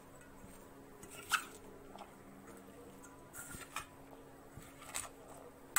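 Chopped vegetables being stirred in a steel bowl, with a few light clinks against the bowl, the sharpest about a second in, over a faint steady hum.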